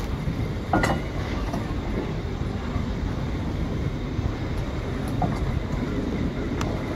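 Carriage of a steam-hauled heritage train running along the track, heard from an open window: a steady low rumble with wind on the microphone. A sharp click comes about a second in, and a couple of fainter ones follow later.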